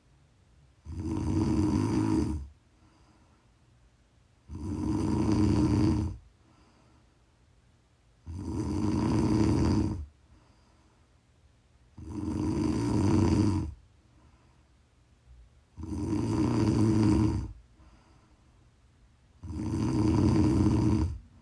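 A woman snoring in her sleep: six loud, regular snores, each about a second and a half long, coming about every four seconds with quiet breathing gaps between.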